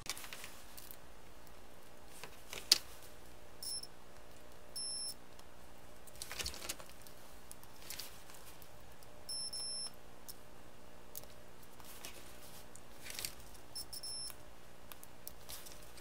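Digital multimeter in continuity mode beeping four times, short high beeps, as its probes touch the conductors of a laptop power cable's tip: each beep marks a continuous connection between the pin and a conductor. Faint clicks of the probes are heard between beeps, over a steady low hum.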